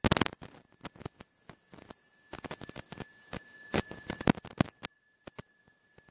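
Freight train rolling past close by: irregular clanks and knocks from the wheels and cars, growing louder around the middle and fading near the end, over a thin steady high-pitched whine.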